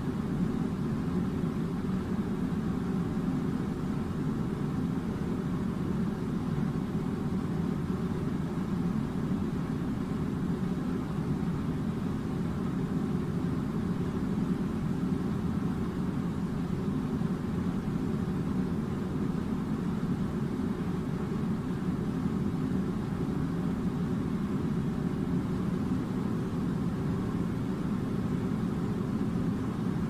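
Steady low mechanical drone, its level and pitch unchanging.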